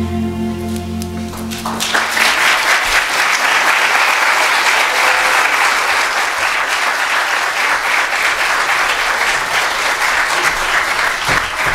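A held closing chord of the song's music ends about two seconds in, and the church congregation breaks into steady applause.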